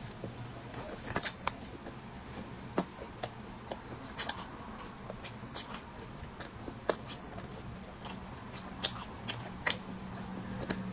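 A person biting and chewing food close to the microphone: irregular sharp clicks, a few to several a second, over a faint steady hum.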